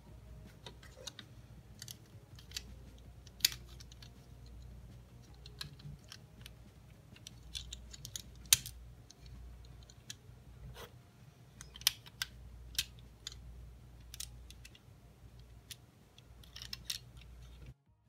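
Plastic Lego pieces clicking and rattling as hands handle and press on a small Lego cube: irregular sharp clicks, a few louder than the rest, over a steady low hum, stopping abruptly near the end.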